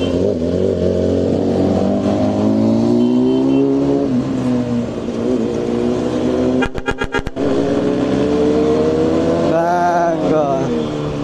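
BMW S1000RR superbike's inline-four engine revving and accelerating on the move, its pitch climbing and dropping several times. About seven seconds in comes a quick run of sharp crackles.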